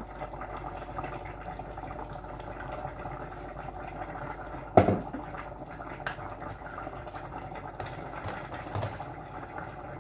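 Stew simmering in a stainless steel pot on an electric hob: steady bubbling with small pops, and one sharp knock about five seconds in.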